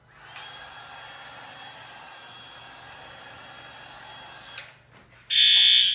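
A steady hissing whir with a faint high whine runs for about four seconds and cuts off with a click. About five seconds in, a fire alarm horn starts sounding a loud blast during alarm testing.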